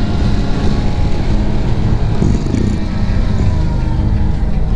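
Ducati Multistrada 950S's L-twin engine running steadily under way, heard from onboard the moving motorcycle.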